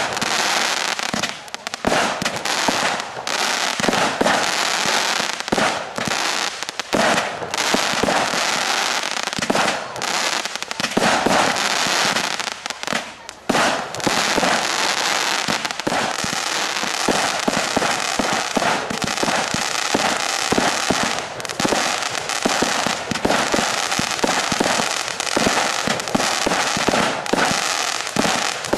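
Aerial fireworks bursting in quick succession, with bangs and the continuous crackling of crackle stars. The crackle becomes denser and almost unbroken from about halfway through.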